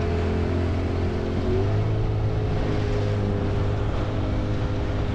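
A boat's engine running steadily, its pitch rising a little about a second and a half in as the revs pick up, with wind and sea noise behind it.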